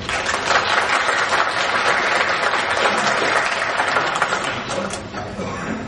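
Audience applauding: dense clapping from many hands that starts at once and dies away near the end.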